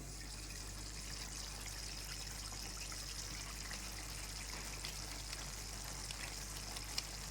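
Chicken curry cooking in a pan on the stove: a steady sizzling hiss with scattered small pops.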